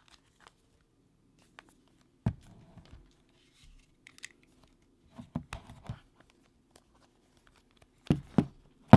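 A cardboard box and a plastic box cutter handled on a tabletop: scattered taps, scrapes and clicks. There is one knock about two seconds in, a cluster of clicks around the middle, and two loud knocks near the end.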